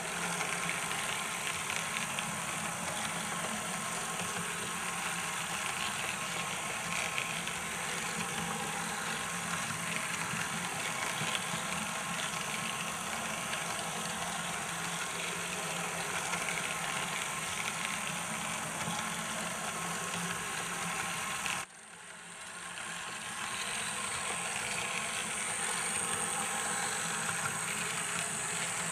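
Märklin H0 model of an SNCB Series 28 electric locomotive running on model track: a steady hum from its motor and the rolling of its wheels on the rails, with a faint chirp in the running noise. The sound cuts off abruptly about three-quarters of the way through, then swells back up.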